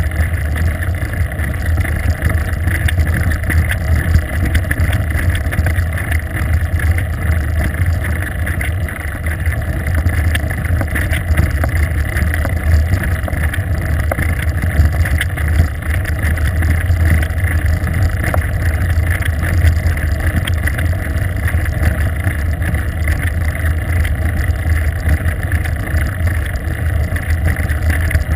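Steady wind rush buffeting a bicycle-mounted GoPro's microphone while riding on a paved road, mostly a deep rumble that stays even throughout.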